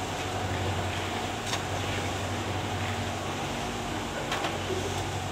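Steady outdoor street ambience: a low hum of distant traffic, with a couple of faint clicks about one and a half seconds in and again after about four seconds.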